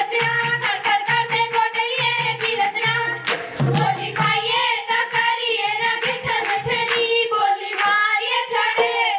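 Giddha: girls singing a Punjabi folk boli in chorus over rhythmic hand claps at about four a second, with a drum beating low underneath and a steady held tone.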